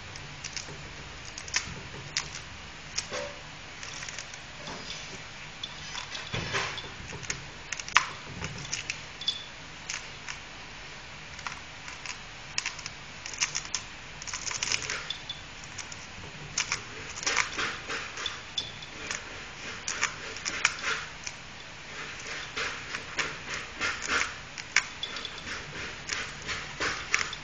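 A dachshund tearing and chewing at a coconut's fibrous husk with its teeth: irregular crackling and scratchy clicks, often in quick clusters.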